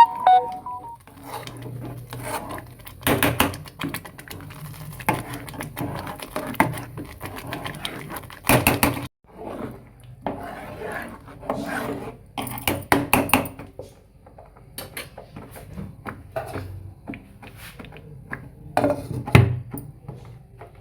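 Kitchen utensils clattering: metal pots, spoons and dishes knocking and scraping at irregular intervals during cooking.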